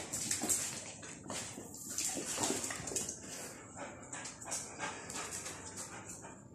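Two pit bulls moving about and mounting on a concrete floor, with irregular short scuffling noises and small dog sounds.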